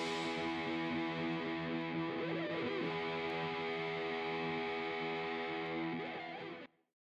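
Background music: a distorted guitar chord held and ringing steadily, fading and cutting off abruptly near the end.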